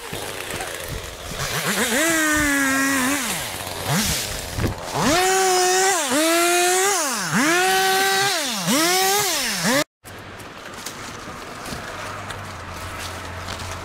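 Two-stroke chainsaw revved repeatedly: a run of throttle bursts, each rising in pitch, holding about a second and dropping away. After an abrupt break near the middle, a quieter, steady low hum.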